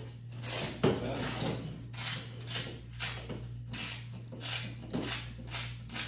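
Double-sided Velcro pocket of a cash belt being peeled open in a string of short rips, about two a second, with a sharp knock about a second in.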